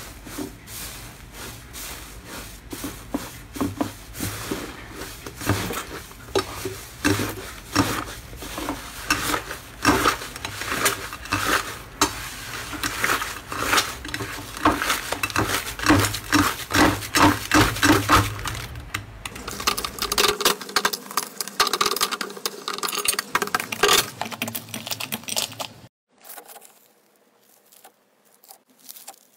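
Hands kneading and squishing a crumbly, airy textured slime, making a dense run of crackling, popping snaps. Near the end it goes much quieter, with only a few soft clicks.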